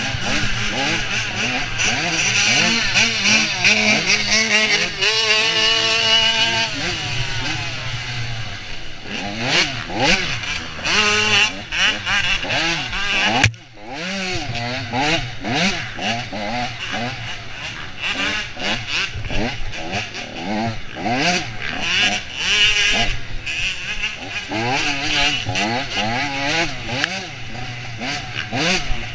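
Off-road dirt bike engine heard close up from the bike, revving up and down constantly as the throttle is worked through the woods trail. About halfway through it briefly drops away, then picks up again.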